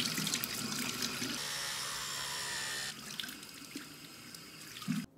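Water running from a bathroom faucet into the sink as hands and then face are washed. The running water gets quieter about three seconds in, and there is a short thump near the end.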